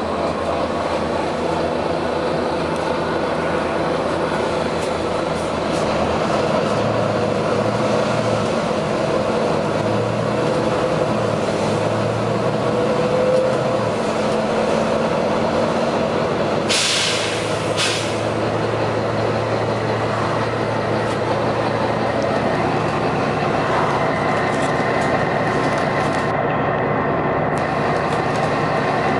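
Volvo B9TL double-decker bus running steadily, its engine note wavering slightly for a few seconds, with a short burst of air hiss about seventeen seconds in and a briefer one just after.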